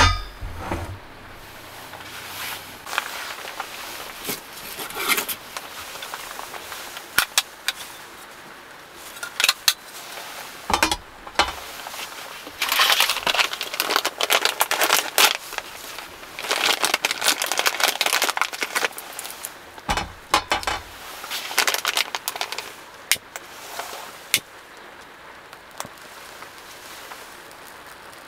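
Handling noise of a folding metal pocket stove being unfolded and set on a metal tray: scattered clicks and light metallic clatter, with two longer stretches of rustling around the middle and a couple of dull thumps.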